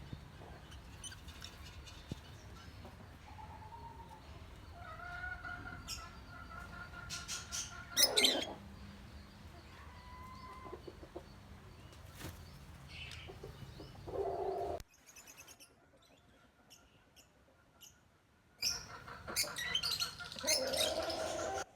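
Lutino African lovebirds chirping in short, scattered calls, with a few louder bursts of calling and wing flutters.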